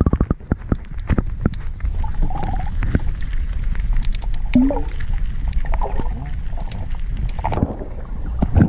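Muffled underwater sound picked up by an action camera held below the surface of a murky river: a dull, steady low rumble of water against the camera. Scattered clicks and knocks come through it, thickest at the start and with a couple of stronger knocks near the end, along with a few short gurgles.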